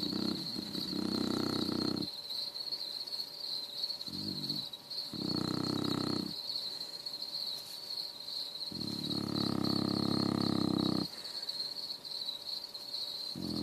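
Beagle snoring loudly in its sleep: four drawn-out, rattling snores, each one to two seconds long, coming about every four to five seconds; some break into two parts.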